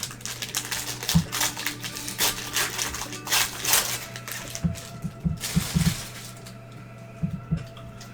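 A basketball trading-card pack's foil wrapper being torn open and crinkled by hand, with a few dull knocks as the cards are handled, then a stop about six and a half seconds in.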